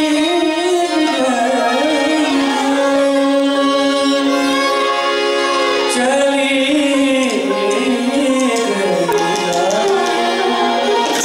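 Live Hindustani classical music for Kathak: a voice sings a gliding, ornamented melody over a held harmonium and sitar accompaniment, with tabla. The sung line drifts gradually lower through the second half, then climbs again near the end.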